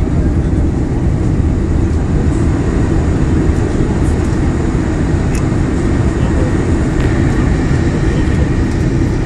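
Steady cabin noise inside a Boeing 747-400 on its landing approach: the rumble of its four turbofan engines and the airflow past the fuselage, heaviest low down.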